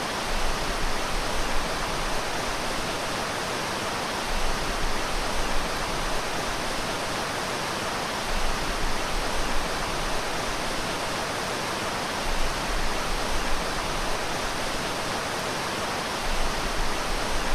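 Steady rushing of water from a swimming pool's waterfall feature pouring into the pool, swelling a little louder about every four seconds.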